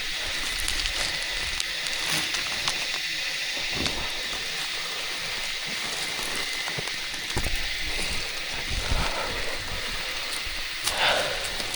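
A steady high hiss with scattered small clicks and knocks, and a louder rustle near the end.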